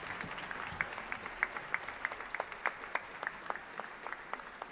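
Audience applauding, with many distinct individual hand claps.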